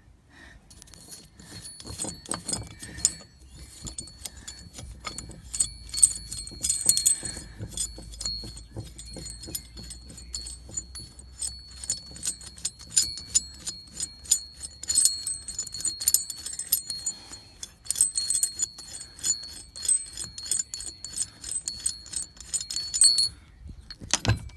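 Dense, irregular metallic clicking and clinking of a steel hex nut and washer being turned by hand on a threaded steel stud, with a thin steady high tone underneath. Both stop near the end, followed by a single louder knock.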